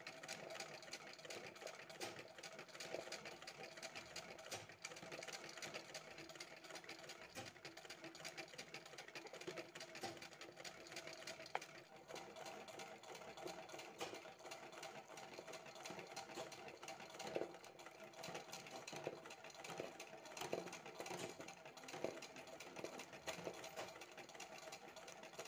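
Domestic sewing machine running steadily and fairly faintly, its needle stitching rapidly as it fills a flower with resham (silk) thread in free-motion embroidery.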